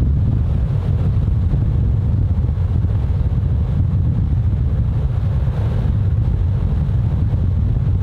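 Steady low rumble of a vehicle driving along the road, with road and wind noise, heard from inside the moving vehicle.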